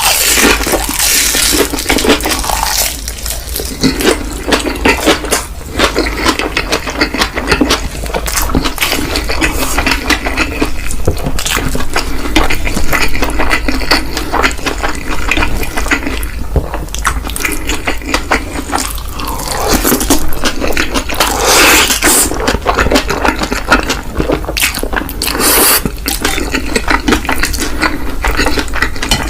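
Close-up wet eating sounds: noodles being slurped and chewed, with irregular smacking and clicks throughout.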